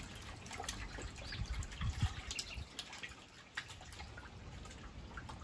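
Faint dripping and small splashes of water, with scattered light clicks and a few low handling thumps about two seconds in.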